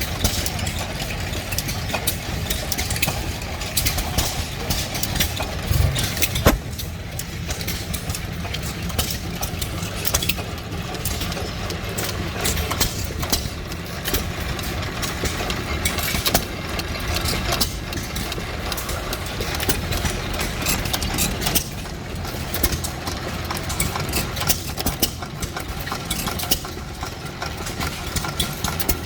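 Hit-and-miss stationary engines running, single-cylinder engines firing in sharp, unevenly spaced strokes over a steady low mechanical running sound.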